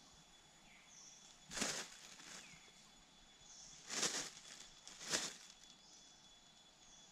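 Three short swishing bursts, about a second and a half in, at four seconds and just after five seconds. Under them is a steady high insect drone with a few faint bird chirps.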